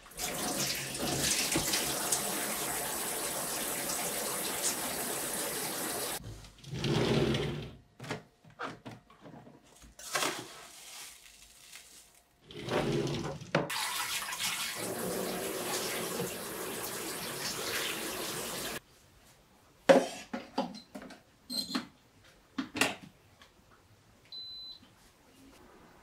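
Kitchen tap running into a stainless-steel sink, shut off after about six seconds, with water swished and sloshed in a pot, then running again for about five seconds. Near the end come a few sharp clicks and knocks and one short high beep.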